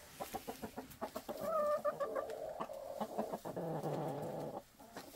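Chickens clucking, with one long drawn-out call lasting a few seconds in the middle, over scattered light ticks and scuffs.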